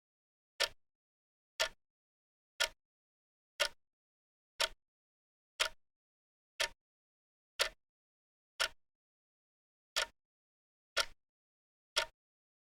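Clock ticking: one sharp tick a second with dead silence between ticks, one gap slightly longer about nine seconds in.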